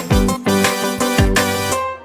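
Background music with a steady beat and deep kick drums, in an Afrobeat style.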